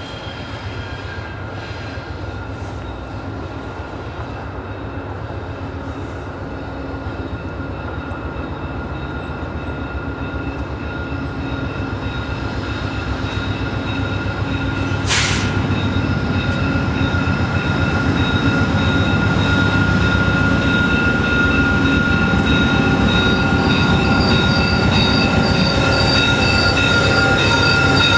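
VIA Rail GE P42DC diesel locomotive and its coaches rolling slowly into a station stop, the engine rumble growing steadily louder as the train approaches. A steady high squeal from the braking wheels strengthens in the second half. A brief sharp hiss sounds about halfway through.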